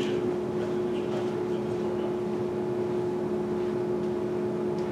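Room tone: a steady hum with a constant low tone and an even background hiss.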